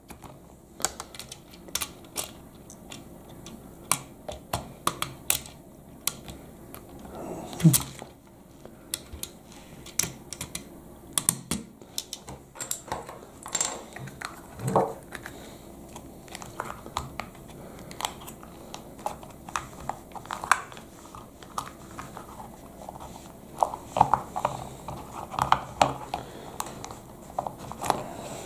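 Irregular small clicks and taps of plastic Lego parts being handled while a rubber tyre is worked onto a plastic wheel rim.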